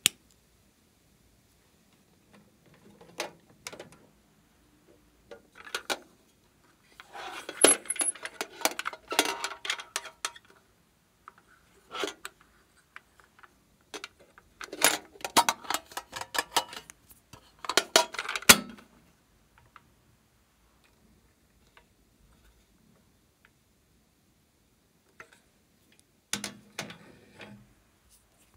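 Clicks and metallic clatter from handling a metal pencil case and pulling caps off small cosmetic tubes, in several bursts separated by quiet gaps. The longest, loudest rattling comes in the middle.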